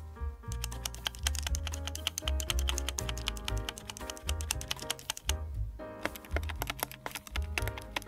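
Repeated presses of the stabilized Shift key on a MechLands MC66 mechanical keyboard, each press clacking with a noticeable stabilizer rattle. The presses pause briefly about five seconds in, then resume, over background music with a steady bass line.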